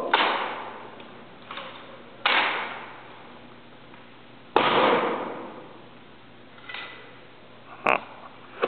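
Sharp claps from a ceremonial rifle drill performed in unison: hands slapping the rifles and rifle butts striking the floor. Three loud claps about two seconds apart, each ringing out in a large hall, and a short click near the end.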